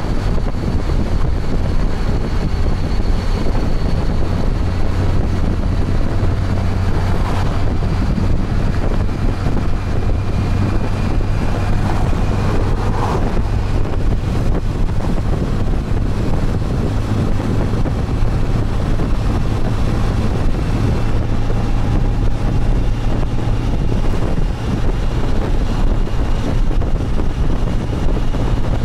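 Motorcycle riding at a steady cruising speed: a steady low engine drone under heavy wind noise buffeting the microphone.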